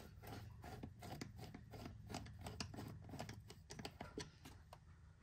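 Faint, quick, irregular clicking as a 7 mm nut driver turns and loosens the hose clamp on the engine's air intake tube, several clicks a second, dying away near the end.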